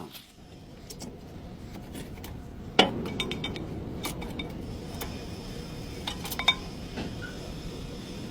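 Light metallic clinks and clicks over a low background rumble, with one sharper knock about three seconds in that rings briefly.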